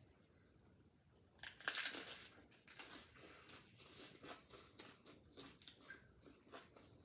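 Crisp crunch of a bite into a fresh green lettuce leaf about a second and a half in, followed by steady crunchy chewing of the leaf.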